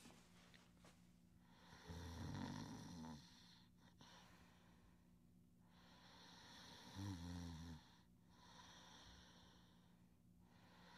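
Soft snoring: slow, deep breaths, with a low snore on two of them, about two seconds and about seven seconds in.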